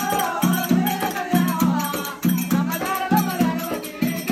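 Telangana folk festival music: a dolu barrel drum beating a steady rhythm of about three strokes a second, with metallic jingling and a voice singing over it.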